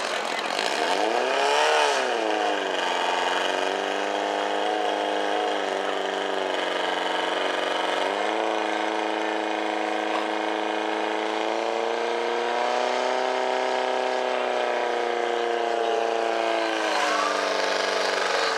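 Portable fire pump's engine running hard as it pumps water through the attack hoses to the nozzles at the targets. It revs up about two seconds in, steps up again partway through, runs highest for a few seconds, then drops back near the end.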